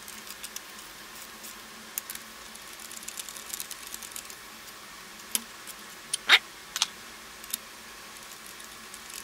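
Light metallic clicking and tapping of a hand wrench loosening a bolt on a Honda 125 Twin's cylinder head, with one sharper, briefly ringing metal clink a little past the middle.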